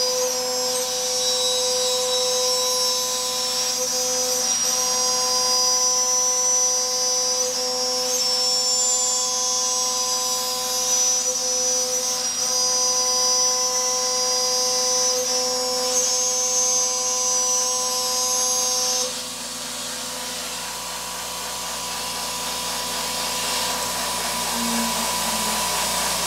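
CNC mill's endmill cutting aluminium plate: a steady high-pitched machining whine made of several fixed tones over a hiss. About three quarters of the way through the cutting note cuts off suddenly and the level drops, the sign of the endmill breaking from being pushed too hard; the spindle and air blast keep on hissing.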